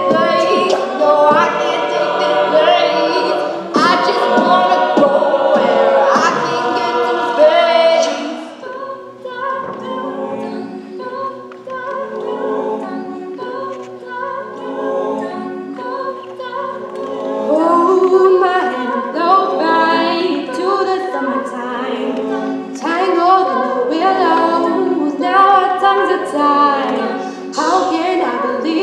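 Mixed-voice a cappella group singing, with several parts layered together and no instruments. It is full and loud at first, drops to a softer passage about eight seconds in, and builds back up from about eighteen seconds in.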